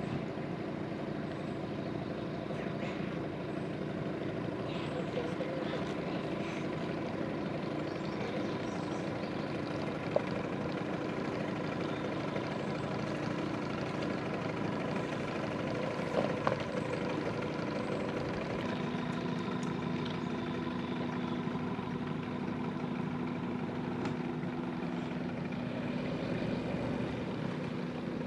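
An engine idling with a steady hum, two light knocks about 10 and 16 seconds in.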